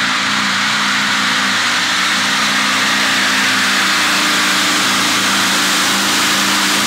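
Pulling tractor's engine running loud and steady at full power on a pull, its note stepping up slightly about four seconds in.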